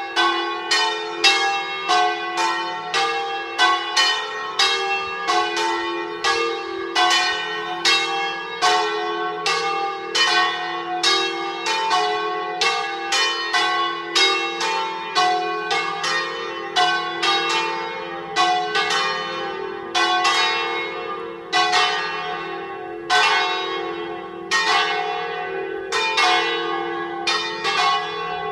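Full peal of church bells: three electrified 1924 Lera bells tuned in a G-flat major scale, rung by falling clappers, together with a small swinging bell. The strokes come in an even stream of about two a second, and their tones overlap and ring on.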